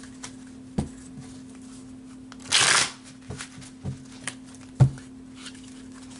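A deck of tarot cards being shuffled by hand: a short dense rustle of cards a little before halfway, and several sharp knocks as the deck is handled, two of them loud.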